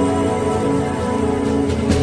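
Live gospel worship band music: held chords with no singing.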